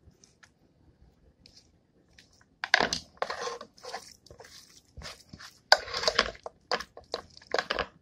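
A spoon scraping and scooping chicken-and-rice filling out of a bowl. A run of short scrapes and knocks starts a little under three seconds in.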